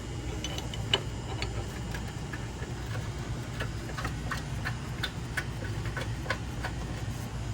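Hand ratchet clicking in a run of sharp ticks, about two or three a second, as the engine mount bolts are turned in, over a steady low hum.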